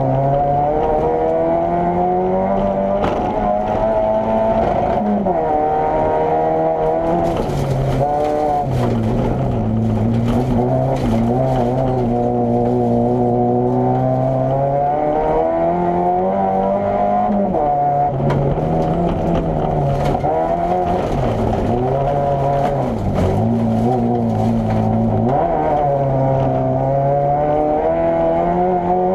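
Opel Corsa A GSi competition car's four-cylinder engine driven hard, its pitch climbing and dropping again and again as it accelerates, shifts and slows.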